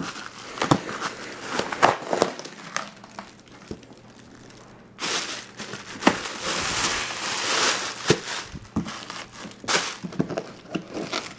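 Packing material crinkling and rustling as a small parts box is unpacked by hand, with scattered sharp clicks and knocks. About halfway through there is a longer stretch of steady rustling.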